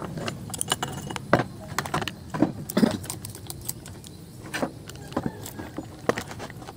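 Steel chainsaw chain handled on the bar and drive sprocket, its links clinking and rattling in irregular sharp clicks.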